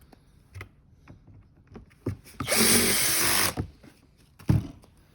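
Cordless electric screwdriver running for about a second, driving a screw into the toy car's plastic body, with a few short knocks of parts being handled before and after.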